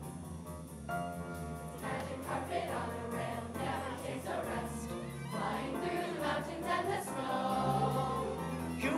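A children's choir singing with a live pit orchestra. The instruments come in about a second in and the voices join shortly after.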